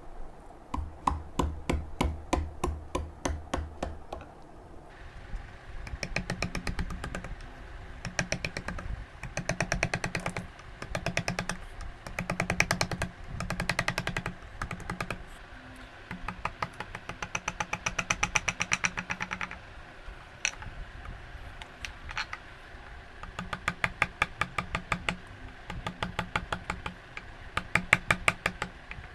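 Hand file rasping across the edge of a wooden spoon blank in repeated strokes, each stroke a quick run of gritty clicks, with short pauses between strokes. This is the rough shaping of the scoop's curved sides.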